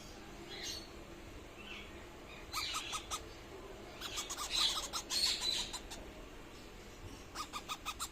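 Indian ringneck parakeet chicks calling in rapid strings of short, repeated chirps, in three bursts.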